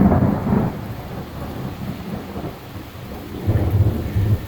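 Thunder rumbling over steady rain: a loud low rumble fades out in the first half second or so, and another rumble rolls in about three and a half seconds in.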